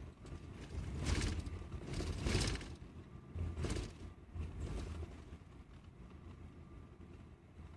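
Steady road and engine rumble of a moving coach bus heard from inside the cabin. There are four louder swells of noise, each under a second, in the first five seconds.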